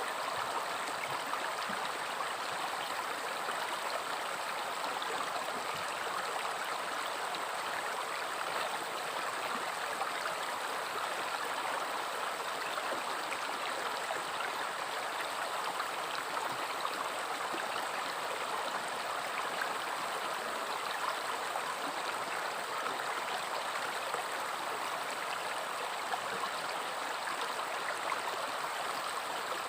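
River water flowing steadily over stones, an even rushing and burbling that holds constant throughout.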